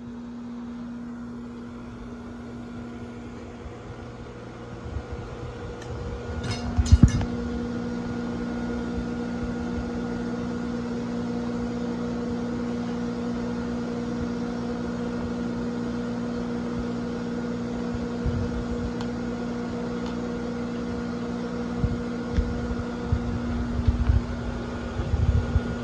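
A hot knife blade is quenched in oil over a steady mechanical hum. A few sharp metal clinks come about seven seconds in as the blade is pulled out and plunged in, then a louder, even sizzling noise sets in and holds, with scattered knocks near the end.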